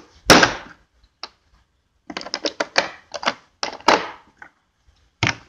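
Husky 3/8-inch socket wrench ratchet clicking in quick runs, with a few louder metal clacks between.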